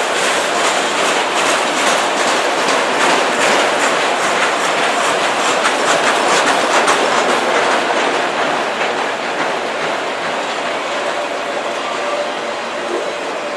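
Autorack freight cars of a passing freight train rolling by close at hand: a steady rumble and rattle of the cars with the wheels clacking on the rails, easing off a little in the last few seconds.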